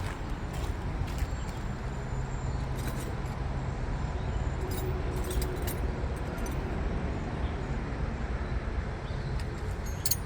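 Scattered light metallic clinks of hand tools being handled, over a steady low outdoor rumble.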